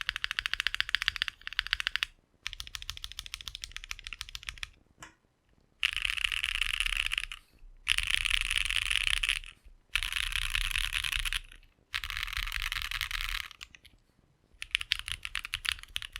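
Custom 65% mechanical keyboard with an aluminium plate, lubed and filmed Snag linear switches and GMK ABS keycaps, typed on rapidly. The keystrokes come in bursts of a second or two with short pauses between them.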